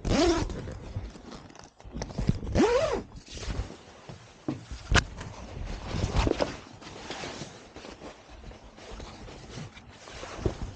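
A person climbing a ladder up into a boat and moving about on board: footsteps, scraping and rustling, with two short squeaks near the start and a sharp click about five seconds in.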